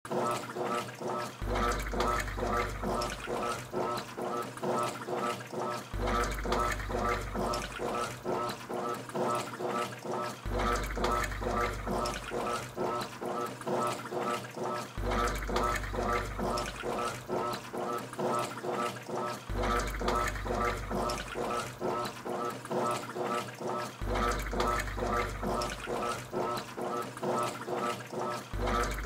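Rushing, swirling water that repeats in an even cycle, with a low rumble about a second and a half long coming back roughly every four and a half seconds.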